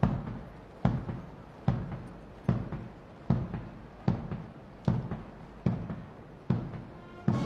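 Drums beating a slow funeral-march time, about ten heavy strokes evenly spaced roughly 0.8 s apart, with no tune played over them.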